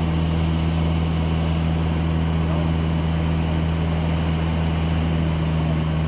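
Light aircraft's engine and propeller droning steadily in level flight, heard inside the cabin: a constant low hum with no change in pitch.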